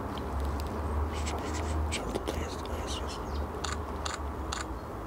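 Nikon Z9 firing bursts of shots: a scattered run of short sharp shutter clicks, bunched in little groups, over a low steady hum.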